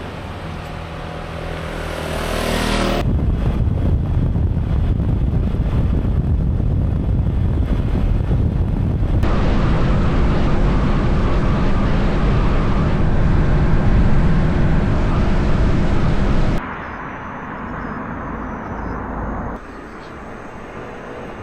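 Honda PCX125 motor scooter on the move, its small single-cylinder engine humming under a heavy rush of wind and road noise. The sound changes abruptly several times, as between separate riding shots.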